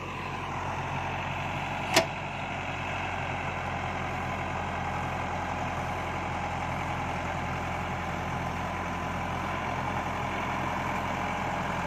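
JCB backhoe loader's diesel engine running steadily. A single sharp click about two seconds in.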